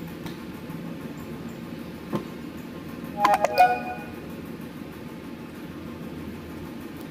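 Jelly slime being pressed flat and pulled by hands on a wooden tabletop: a soft knock about two seconds in, then a quick cluster of sharp, pitched pops about three seconds in.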